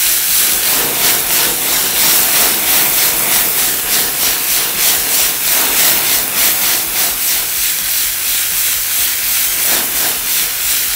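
Diced beef frying in olive oil in a hot granite-coated pan, a loud sizzling hiss that pulses a few times a second as the pan is shaken and the contents flare up in a flambé.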